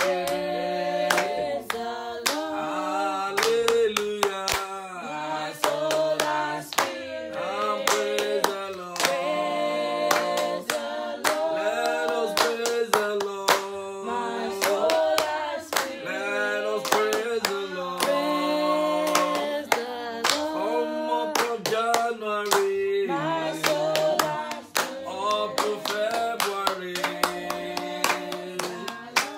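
A man singing a praise song while clapping his hands in a steady rhythm, about two claps a second.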